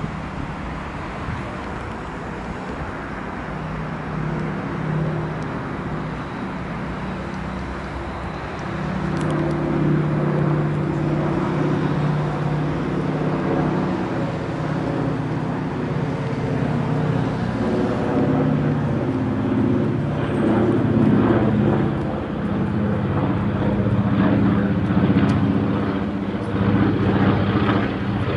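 Junkers Ju 52 trimotor flying overhead, the drone of its three radial engines and propellers, a steady low hum of several tones that grows louder about nine seconds in as the plane comes over.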